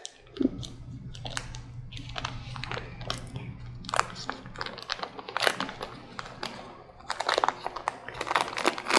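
Paper wrapper of a stick of butter crinkling as it is unwrapped and handled, with scattered clicks and knocks, and a denser stretch of crinkling near the end.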